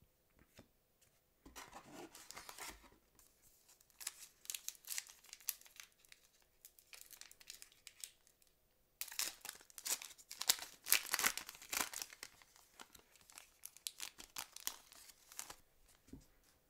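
Foil wrapper of a 2006 Fleer Ultra football card pack being torn open and crinkled in irregular bursts, loudest from about nine to twelve seconds in. Between the bursts, trading cards are handled and slid against each other.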